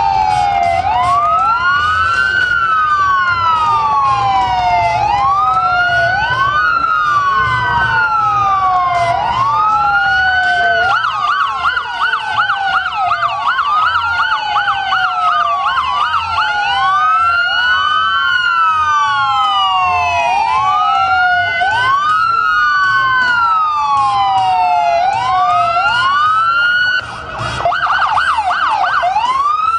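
Several emergency-vehicle sirens sounding together, overlapping and out of step, each wailing up and down in pitch about once every two seconds. Twice the wail breaks into a fast yelp: in the middle and again near the end.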